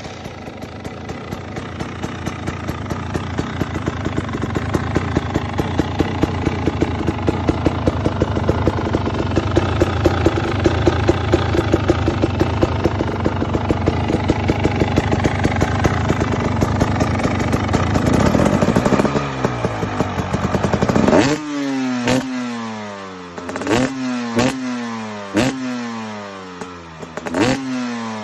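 KTM EXC 300 two-stroke enduro engine running steadily at idle through its exhaust. Near the end it is given a few sharp throttle blips, the pitch falling quickly back after each.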